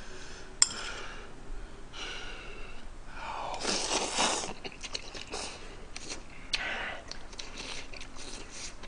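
A person slurping ramen noodles and chewing, with several noisy slurps, the longest and loudest about three and a half to four and a half seconds in. A sharp click of a utensil against a bowl comes within the first second.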